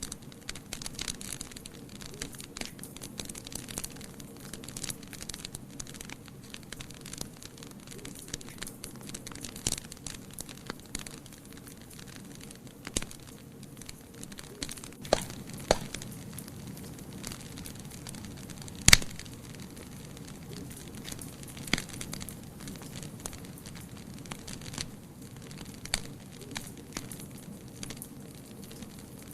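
Wood fire burning in a fireplace, crackling steadily with scattered pops. The loudest snap comes a little past the middle.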